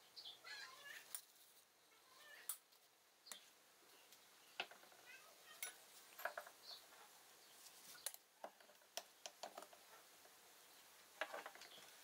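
Faint, scattered clicks, taps and short squeaky scrapes of aluminium moka pot parts (filter funnel, upper chamber, boiler) being handled and set down on a wooden table.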